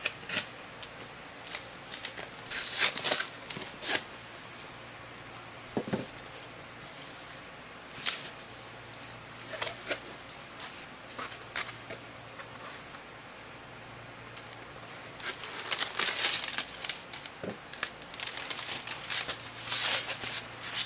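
A shipping box being opened with a dull knife: tape and cardboard tearing and packing material crinkling in irregular bursts. The bursts come thickest over the last few seconds.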